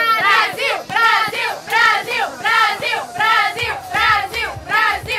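A group of young women chanting and singing together in high voices, a quick, regular chant of about three syllables a second.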